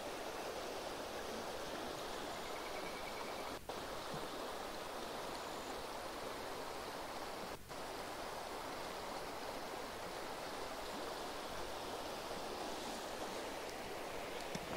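Creek water flowing steadily after a flood, an even rushing sound with two brief dips.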